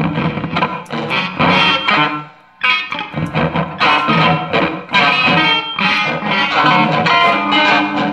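Electric guitar through effects and loops, played as free improvisation: a dense, busy stream of plucked notes with a short dip about two seconds in before it picks up again.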